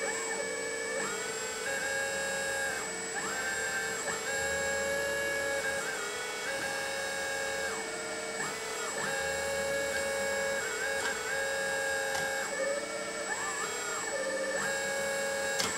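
Electric hydraulic pump of a 1/14-scale RC hydraulic excavator whining. Its pitch steps up each time a control is moved to work the boom and bucket, then drops back, again and again. There is a sharp click near the end.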